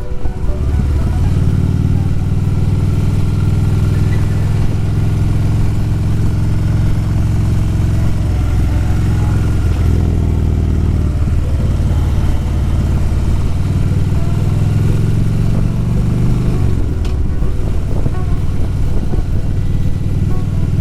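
Harley-Davidson Road Glide's V-twin engine running under way, its pitch rising and falling several times with throttle and gear changes.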